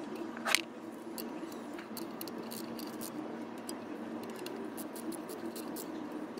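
Socket wrench on a bolt of a Nissan CVT oil strainer: one sharp metal clink about half a second in as the socket goes onto the bolt, then scattered light clicks as the bolt is turned. A steady low hum runs underneath.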